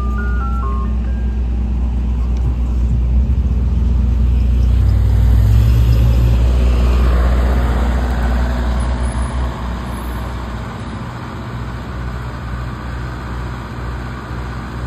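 Ice cream truck's engine running with a steady low rumble that grows louder toward the middle, then drops off as the truck pulls away. The last notes of its music jingle stop within the first second.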